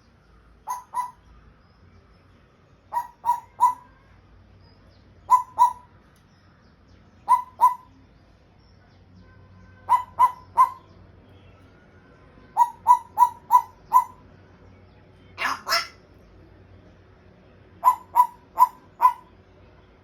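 African grey parrot giving short, repeated pitched calls in quick clusters of two to five, a new cluster every two seconds or so, with one longer call about three-quarters of the way through.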